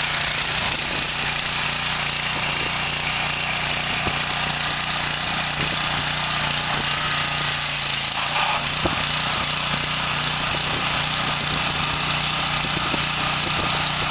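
DeWalt gasoline pressure washer running steadily: its small engine's drone under the hiss of the high-pressure water spray from the wand.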